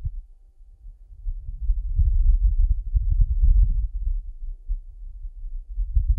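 Wind on Mars picked up by the Perseverance rover's microphone: a low rumble that swells in gusts from about a second and a half in, eases off, and swells again near the end.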